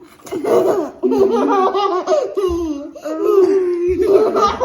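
Girls laughing hard, several voices overlapping in bursts of wavering, up-and-down pitch.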